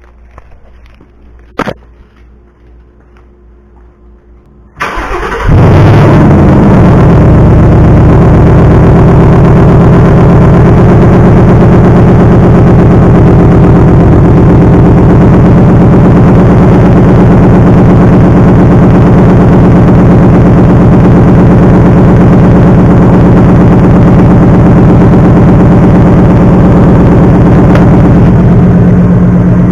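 2018 Ford Mustang GT's 5.0-litre Coyote V8 cranking and catching about five seconds in, its revs flaring and then dropping into a loud, steady idle.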